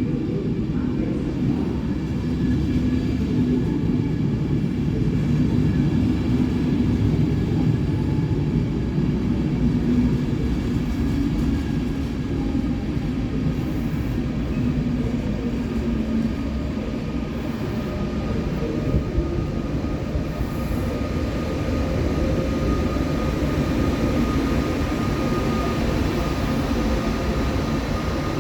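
Electric train running through the station: a steady low rumble, with a faint high whine coming in about two-thirds of the way through.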